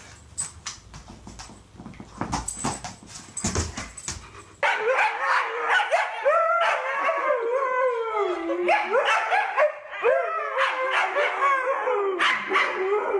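A few brief clicks, then from about a third of the way in several Siberian huskies howling and yowling together, their pitches sliding up and down and overlapping.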